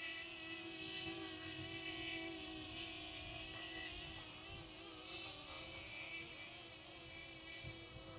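Faint whine of a DJI Flip drone's propellers, its pitch wavering continually as the motors correct against gusty high wind.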